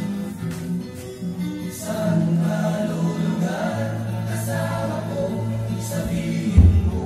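Background music: a gospel-style song with choir singing over sustained instrumental chords, and a deep low thump near the end.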